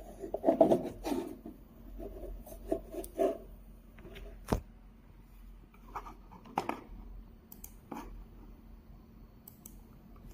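Handling noises: bursts of rustling and scraping, a single sharp click midway, then a few more scattered clicks, over a faint steady low hum.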